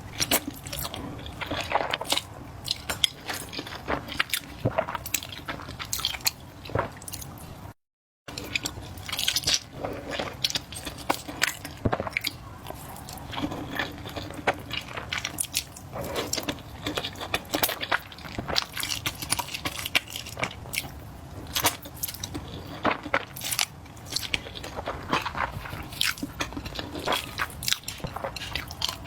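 Close-miked chewing and wet mouth sounds of someone eating spicy flat noodles: a dense, irregular run of smacks, clicks and bites. The sound cuts out completely for a moment about eight seconds in.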